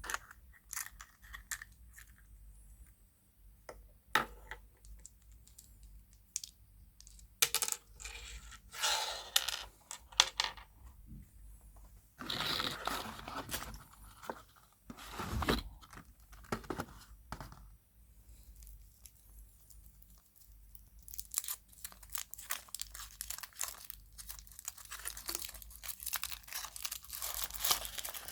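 Surprise-egg wrappers being torn open and crumpled by hand, a crackly crinkling that comes in bursts, with scattered small clicks and taps at first and a long stretch of continuous crinkling near the end.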